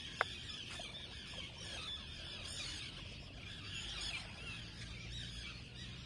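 A flock of birds calling, many short high calls overlapping in a continuous chatter, over a faint low rumble.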